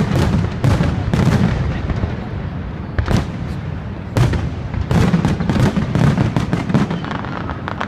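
Fireworks display with aerial shells bursting in a rapid, irregular string of bangs, sometimes several a second, with a continuous low rumble between them.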